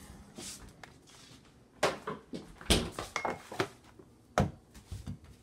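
Food and containers being handled: pulled from a fridge and set down on a kitchen counter, giving a handful of sharp knocks and clatters about a second apart, the loudest near the middle.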